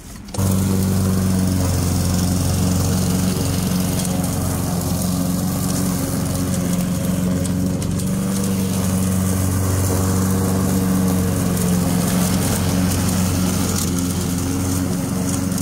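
Husqvarna walk-behind lawn mower's petrol engine running steadily under load as it mulches dry fallen leaves, with the mulching plug fitted. The sound begins abruptly about half a second in.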